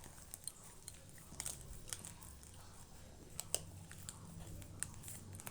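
Beagle puppy biting and crunching frozen ice cream with its teeth: a run of irregular sharp crunches and chews, the loudest about three and a half seconds in.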